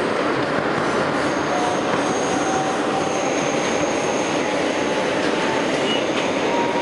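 Inside an R160B Siemens subway car in motion: a steady rumble of wheels on rail. A faint high squeal and a lower whine that creeps up in pitch sound through it.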